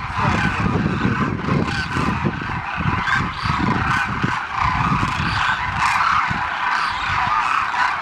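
A large flock of demoiselle cranes calling all at once: a dense, unbroken chorus of overlapping honking calls from hundreds of birds.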